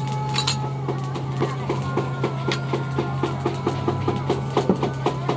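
A fast, even beat of sharp strikes, about four a second, starting about a second and a half in, over a steady low hum with ringing tones that shift in pitch.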